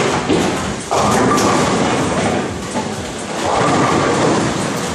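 Tenpin bowling balls rumbling down the lanes and crashing into the pins, with louder bursts of pin clatter about a second in and again past three seconds.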